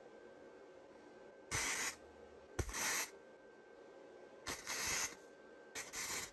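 Four short bursts of hissing spray, each about half a second long, the second starting with a light click.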